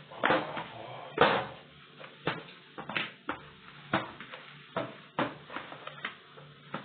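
Dumpling dough being kneaded by hand in a bowl: irregular slaps and thumps as the dough is pressed and turned against the bowl, about ten in all, the loudest about a second in.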